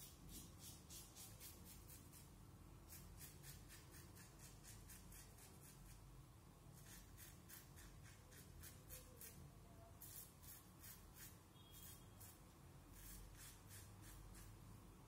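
Edwin Jagger double-edge safety razor with a Derby Extra blade scraping through lathered stubble: faint, crisp rasps in runs of quick short strokes, several a second, with brief pauses between runs.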